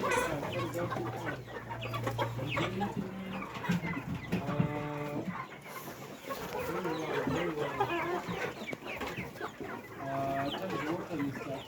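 A large flock of young Sasso chickens clucking and chattering together, with a longer drawn-out call about halfway through and another shorter one near the end.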